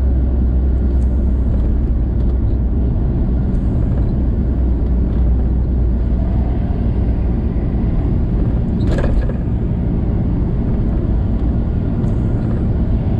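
VW T4 campervan driving along a road: steady engine and road rumble, with a single sharp click about nine seconds in.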